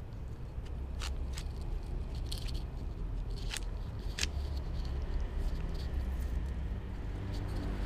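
A cat eating cooked rice from a plastic tub close to the microphone: a few sharp clicks and scrapes of its mouth against the plastic, over a steady low rumble.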